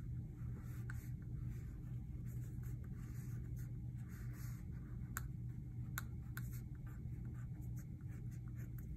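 Black Crayola wax crayon scratching across paper in short irregular strokes as outlines are drawn, over a steady low hum. A few sharp ticks come about five to six and a half seconds in.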